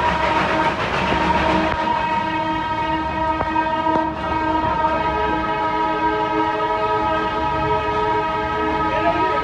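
A Darjeeling Himalayan Railway train's whistle sounding long and unbroken, its pitch holding steady, over the rumble of the train running. More tones join in about two seconds in.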